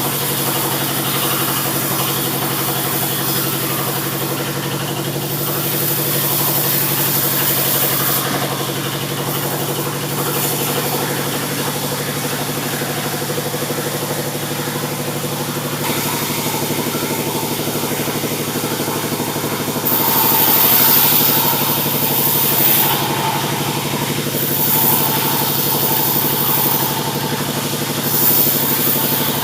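Sawmill running while sawing a mahogany log: a steady engine drone throughout, with a high hiss that swells several times, the blade cutting through the wood.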